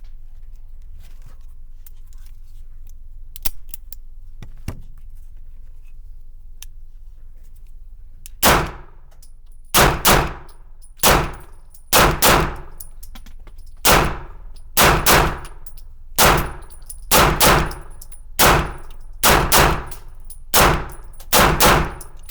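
Gunshots fired in quick pairs, double taps with about a quarter to a third of a second between the two shots, the pairs coming every second or two. They start about eight seconds in, and each shot rings out briefly.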